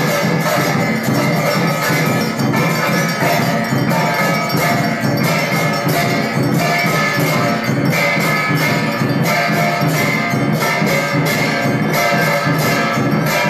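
Brass temple bells ringing continuously, with a fast, steady run of strikes and ringing tones that overlap. This is the bell-ringing of an aarti service.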